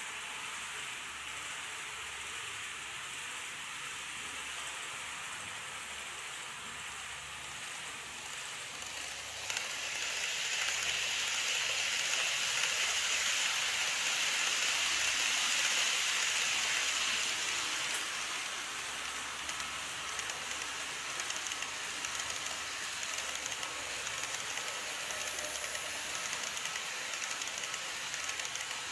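N-gauge model trains, an E351-series and then an E233-series, running on model track: a steady hissing rattle of wheels on the rails, growing louder about ten seconds in as the E351 passes and easing off after, then a second train rattling past near the end.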